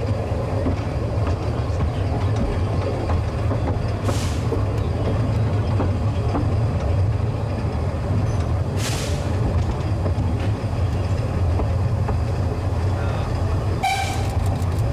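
A vehicle running with a steady low rumble, with two short hisses about four and nine seconds in and a brief squeal with a few clicks near the end.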